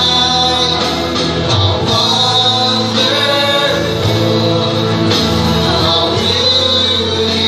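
A live worship band playing a Christian song: electric guitars and bass guitar with several voices singing together, steady and full throughout.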